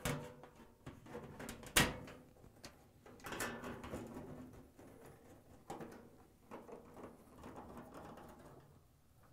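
A sheet-metal rear access panel knocks once against a front-load washer's cabinet as it is set in place, about two seconds in. After that come faint clicks and scraping as a screwdriver drives the panel's Torx screws.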